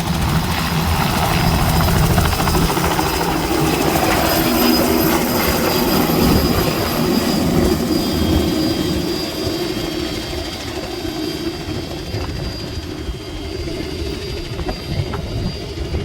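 Helicopter engine and rotors running steadily, loud and even, easing off a little in the second half.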